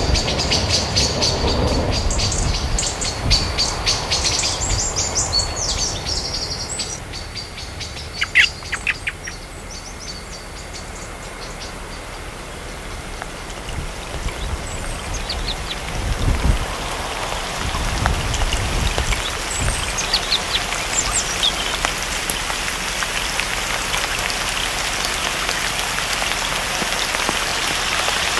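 Steady rain, with rapid high bird chirping for the first several seconds and a brief loud burst of sharp calls about eight seconds in. There are low rumbles around sixteen seconds, and the rain grows louder through the second half.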